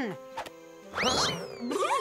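A cartoon sound effect about a second in: a quick upward swoop followed by falling glides. Near the end, snickering laughter starts over music.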